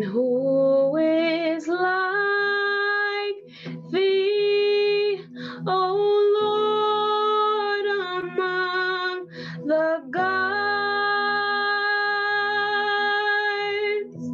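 A woman singing a worship song in long held notes, sliding up into several of them, over sustained electric keyboard chords.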